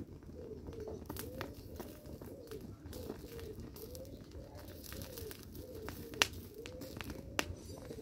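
A dove cooing over and over in a low, rising-and-falling call, with scattered sharp crackles and pops from a fire of burning shoes, the loudest pop about six seconds in.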